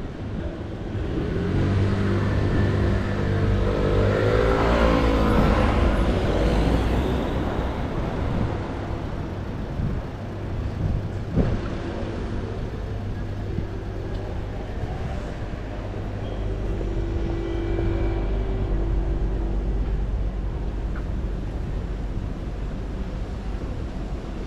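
City street traffic: a motor vehicle's engine passes close by over the first several seconds, its pitch rising and then falling as it goes past. It is followed by a quieter steady engine hum and street noise, with one sharp knock about eleven seconds in.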